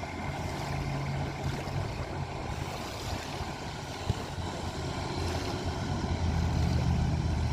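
Radio-controlled boat running on a lake, its motor a faint steady whine, with wind buffeting the microphone. The sound grows a little louder near the end.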